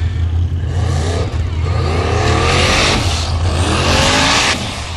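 Formula Offroad buggy's engine revving hard in a series of rising surges under full load up a steep dirt climb, with a loud hiss of spinning tyres throwing dirt, over a steady low drone. The revving cuts back sharply about four and a half seconds in.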